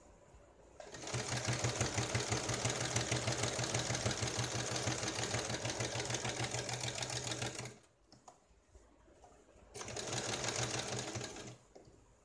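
Domestic electric sewing machine stitching a velcro strip onto fabric, the needle running fast and steady. One long run of about seven seconds starts about a second in and stops, then a shorter run of under two seconds follows after a pause.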